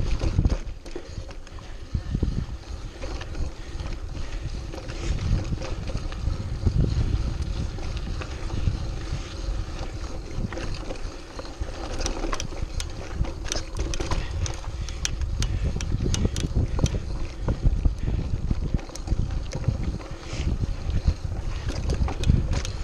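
Mountain bike rolling down rocky dirt singletrack: tyre noise and the bike rattling and clattering over stones, with wind rushing over the camera microphone. The clatters come thick and fast for a few seconds past the middle.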